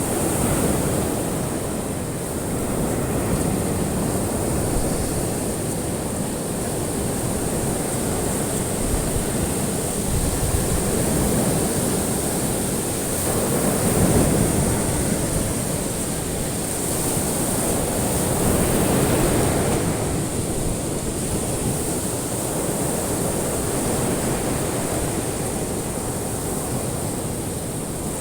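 Ocean waves breaking and washing on a shore, a continuous surf wash that swells and eases every few seconds. A steady high hiss sits above it.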